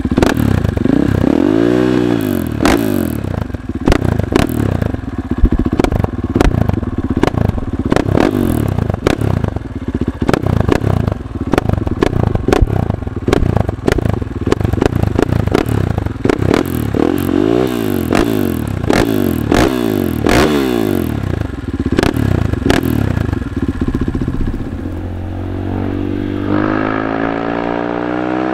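Husqvarna FE 501 supermoto's single-cylinder four-stroke engine through an FMF exhaust, revved up and down again and again with sharp popping and crackling. Near the end the revs settle into a steadier, smoother climb in pitch.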